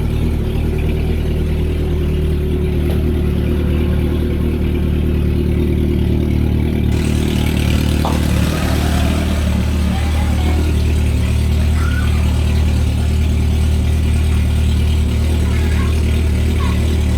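Honda CB400 Super Four VTEC III's inline-four engine idling steadily through an aftermarket titanium exhaust, with an even low tone throughout.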